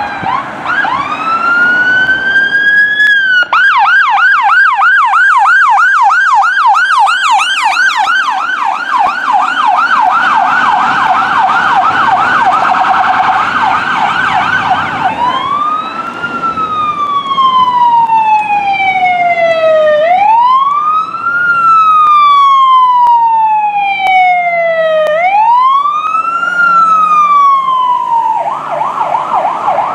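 Sirens of fire rescue trucks responding: a fast, rapidly repeating yelp, then slow wails that climb and fall over several seconds, switching abruptly to each other about fifteen seconds in and again near the end. A faint low engine and road rumble runs underneath.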